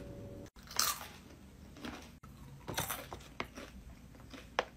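A person chewing crunchy coconut clusters, with about five sharp crunches spaced roughly a second apart.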